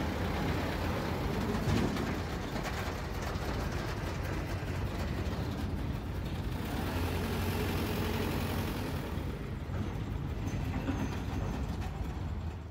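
Flatbed tow truck's engine running steadily, with a low hum.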